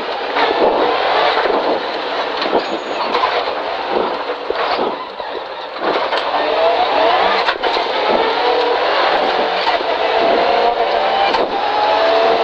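Rally car engine heard from inside the cabin with road and gravel noise, easing into a tight bend in first gear and then accelerating hard up through the gears, its pitch climbing again with each gear from about six seconds in.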